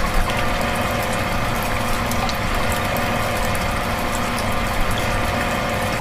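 Small electric motor of a miniature belt-driven water pump running with a steady whine, and water splashing from the pump's spout.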